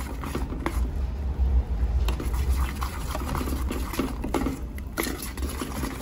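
A metal spoon stirring thick, freshly dyed green sugar syrup round an aluminium pot: wet sloshing with irregular scrapes and taps of the spoon against the pot, over a low steady rumble.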